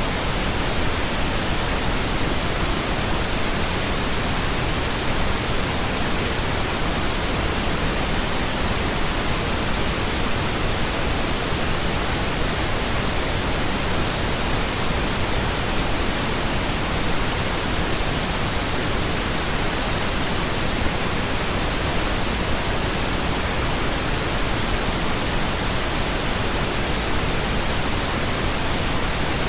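Steady pink noise: an even, unchanging hiss spread across all pitches, with no events or variation.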